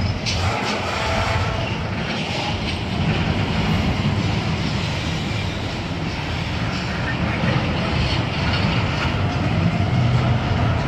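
Intermodal freight train's double-stack container well cars rolling past, with a steady noise of steel wheels on the rails.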